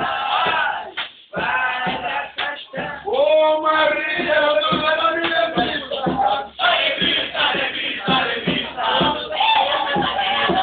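A group of men singing and shouting together loudly, voices overlapping, with some notes held and brief breaks between phrases.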